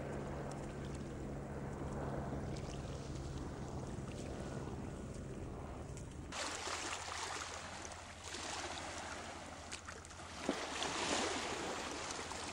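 Small boat's motor running with a steady low hum under wind and water noise. About six seconds in the hum drops away and a louder hiss of wind and lapping water takes over.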